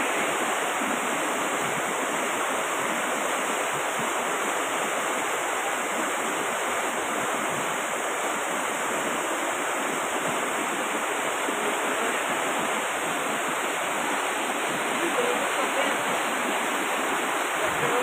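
Flash flood of muddy brown water rushing down a street: a steady, unbroken rush of water.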